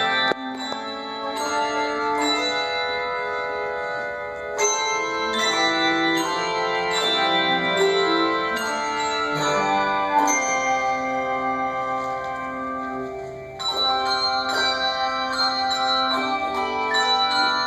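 Handbell choir playing: struck handbells ring out together in chords, each with a sharp start and a long ringing decay, the notes overlapping. The ringing thins out briefly about three-quarters of the way through, then comes back with a loud chord.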